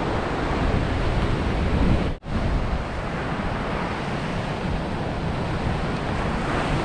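Ocean surf breaking on the beach, a steady rushing noise, with wind buffeting the microphone. The sound cuts out for an instant about two seconds in.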